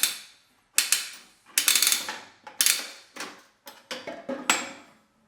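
Coin mechanism of an all-metal triple-head gumball vending machine being cranked over and over, about six sudden ratcheting clatters in a row, each fading fast, as it is tested with gumballs and bouncy balls.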